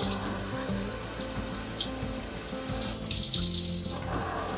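Water running from a new pull-down kitchen faucet into a stainless steel sink, in a thin stream that the owners put down to low water pressure while their well's pressure tank builds back up. Background music plays underneath.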